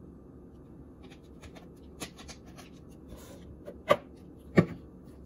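Kitchen items being handled and moved about on a granite countertop: light clicks and a brief rustle, then two sharp knocks about four and four and a half seconds in as things are set down.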